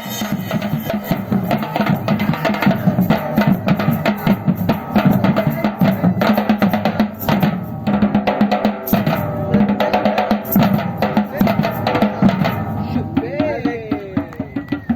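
Batucada percussion ensemble of Brazilian drums playing a dense, driving rhythm together. A sliding, rising-and-falling pitched sound joins in near the end.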